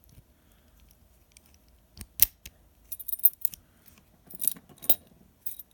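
Scattered metallic clicks and clinks from handling a picked-open Master Lock padlock: one sharp click about two seconds in, then small clusters of light clinks.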